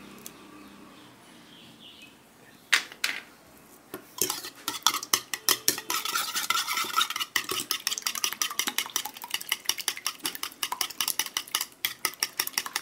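Wire whisk beating eggs in a bowl, its wires clicking quickly and steadily against the bowl from about four seconds in. A couple of sharp knocks come shortly before.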